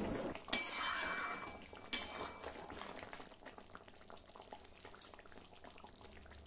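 Chicken pieces simmering in a kadai in the water they have released with salt, a faint bubbling hiss that fades away. Two light clinks come about half a second and two seconds in as the lid is lifted off the pan.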